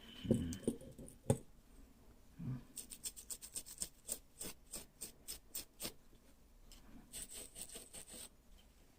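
Scrubbing the freshly soldered joints of a small circuit board to clean them: rapid, scratchy back-and-forth strokes, about five a second, in two spells, after a few light handling knocks.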